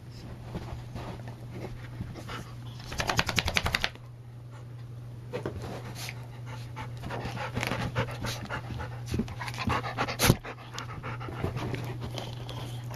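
Dog panting, with a loud run of rapid panting about three seconds in, followed by scattered rustles and knocks and one sharp knock near the end. A steady low hum runs underneath.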